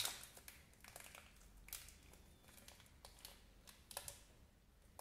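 Faint crinkling of thin clear plastic wrapping, with light scattered ticks, as a small plastic stapler is handled and unwrapped.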